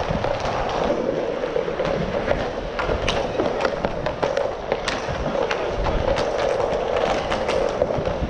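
Inline hockey play heard from a helmet camera: a steady rolling rumble of skate wheels on plastic sport-court tiles, with sharp clacks of sticks and puck striking the floor scattered throughout.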